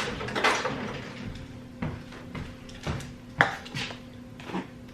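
Kitchen handling sounds: about five separate knocks and clinks of containers and utensils, over a faint steady hum.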